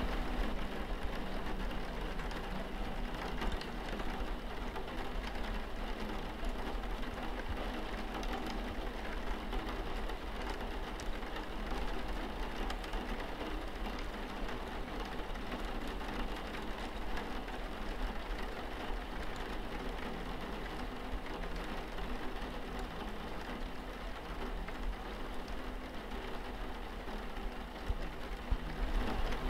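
Steady rain on a window pane: an even, unbroken hiss of falling drops, with a low steady hum underneath.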